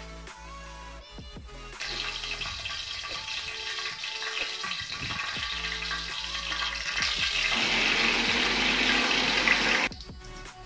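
Hot oil sizzling in an aluminium kadai, starting about two seconds in, growing louder near the end and cutting off suddenly, over electronic background music.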